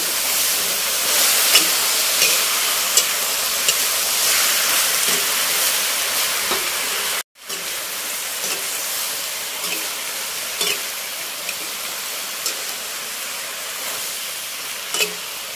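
Mushrooms, shrimp and mustard greens sizzling in a hot oiled wok as a metal spatula stirs them, with scattered scrapes and clicks of the spatula against the pan. The sound drops out for a moment about seven seconds in.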